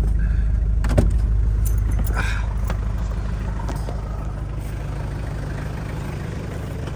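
Vehicle engine idling with a steady low rumble, and a sharp knock about a second in; the rumble slowly gets quieter.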